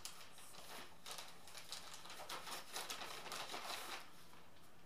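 Packaging crinkling and rustling as a shirt is pulled out and handled, a quick run of small crackles that stops about four seconds in.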